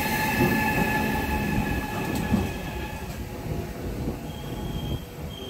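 Yellow RegioJet passenger train, an electric locomotive with coaches, rolling along the station platform with a low rumble of wheels on rail. A steady high squeal of wheels or brakes fades out about three seconds in.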